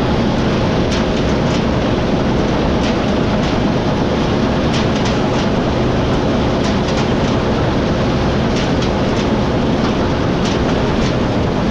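Heavy farm machinery running steadily, with a constant low hum and scattered sharp rattling clicks.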